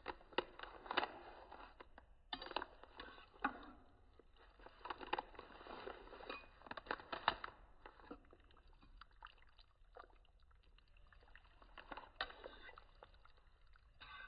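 Faint kitchen handling noises: scattered clicks and knocks with short stretches of rustling and scraping.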